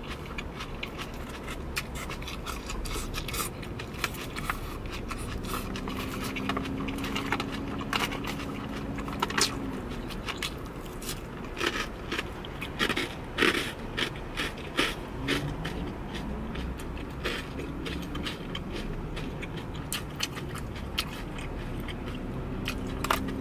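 Close-miked eating of a lettuce salad with croutons: irregular crunching and chewing, with a plastic fork clicking and scraping against a plastic takeout container.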